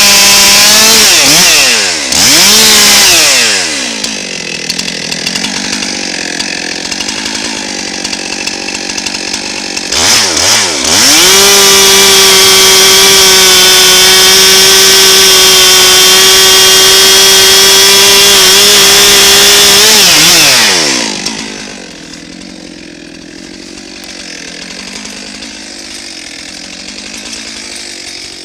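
Two-stroke chainsaw working through a cut: it runs at full throttle, drops to idle, is blipped twice, and then holds a steady high-pitched full throttle for about nine seconds. It falls back to idle about 21 seconds in.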